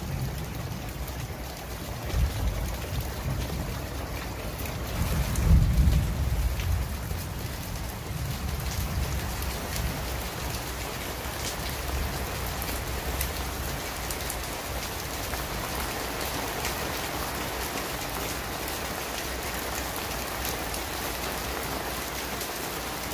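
Heavy downpour falling steadily on leaves and surfaces. Low rumbles swell in the first six seconds, the loudest about five and a half seconds in.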